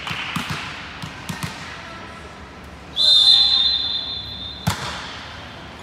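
Referee's whistle: one steady, high blast lasting about a second and a half, the signal to serve, followed right away by a single sharp smack of the ball being served. Before it come a few light thuds of a volleyball bounced on the gym floor.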